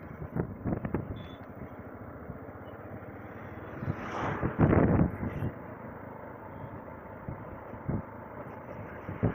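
A vehicle on the move, its steady road rush mixed with wind buffeting the microphone; there are loud gusts about four to five seconds in.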